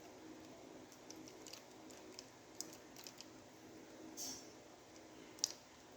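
Faint, scattered clicks and taps of a plastic Transformers action figure being handled and posed, its joints and parts clicking, the sharpest click about five and a half seconds in.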